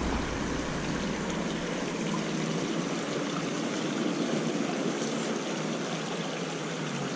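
Small creek's water running steadily: an even rush and trickle.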